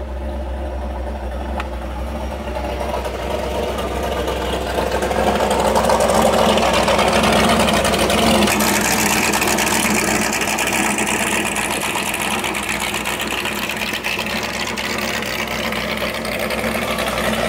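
Home-built electric outboard motor running under way with a steady machine hum and whirr, growing louder over the first few seconds and then holding.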